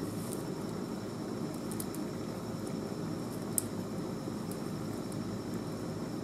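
Steady low background rumble, with faint clicks and rustles from an Amsteel rope tether being wrapped around a tree trunk and pushed up, and one sharper click about three and a half seconds in.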